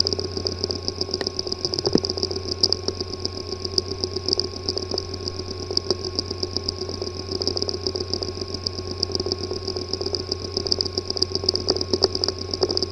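Hard drive with a physically damaged disk assembly, making a steady buzzing hum with fast, fine chattering and a few sharper clicks: the symptom sound of a drive with damaged internals.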